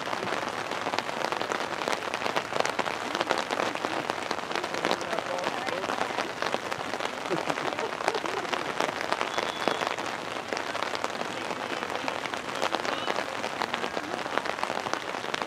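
Steady rain pattering close by, a dense crackle of drops striking umbrella fabric.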